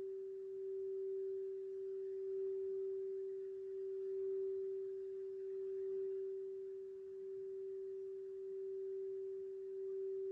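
Singing bowl sustaining one steady pure tone, swelling and easing gently in loudness every couple of seconds.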